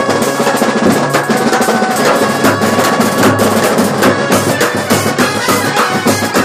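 Kerala band set (brass band) playing a drum-heavy passage: rapid beating on bass drums and side drums with cymbals, trumpets sounding over it.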